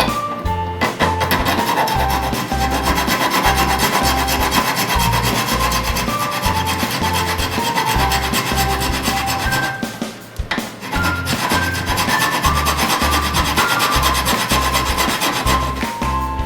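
Hand file rasping steadily on brass screws to shorten them, with a brief pause about ten seconds in. Background music with a steady bass line plays underneath.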